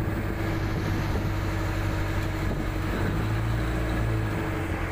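Boat engine running steadily during a sea crossing, a constant low drone over wide water and wind noise.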